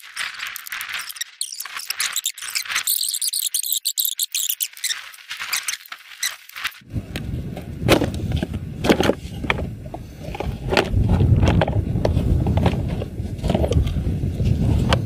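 High-pitched squeaking for about the first half, then sharp clicks and knocks of tools and loosened parts as body panels are unscrewed from a Honda Dream motorcycle's frame. About halfway a steady low rumble cuts in abruptly.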